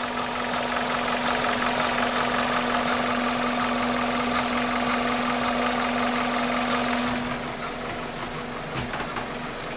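Toyota 7A-FE 1.8-litre inline-four idling with a steady hum and a misfire, described as sneezing, which the mechanic traces to the second cylinder dropping out, possibly from a tight exhaust valve. A hiss over the engine note drops away about seven seconds in, and the sound gets quieter.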